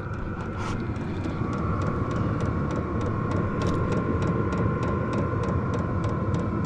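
Portable 12-volt diesel air heater running: a steady rumble with a constant whine from its blower, and the quick, regular ticking of its fuel pump.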